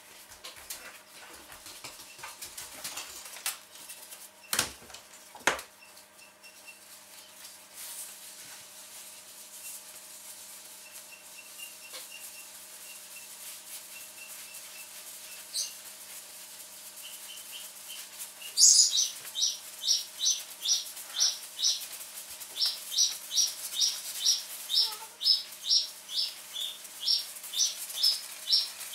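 Toilet paper being pulled and torn: a quick run of short papery rips, about two a second, starting about two-thirds of the way in. Earlier come two sharp thumps a second apart.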